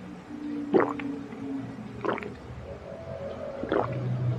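A person gulping a drink from a small plastic bottle, close to the microphone: a swallow about every second and a half, the first the loudest, with low throat sounds between.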